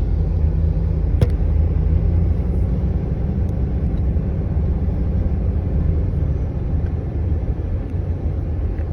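Norfolk Southern freight grain train rolling past with a steady low rumble, and one sharp click about a second in.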